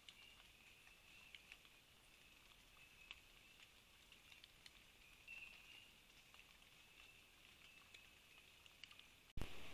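Faint outdoor ambience: a thin, high, steady hum with scattered light ticks and patters. Near the end it cuts abruptly to a sudden, louder rush of noise.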